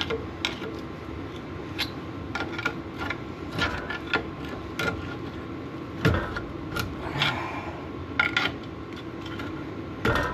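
Hand tools working a seized, rust-frozen brake caliper loose: irregular sharp metal knocks and clicks with short scrapes, over a steady background hum.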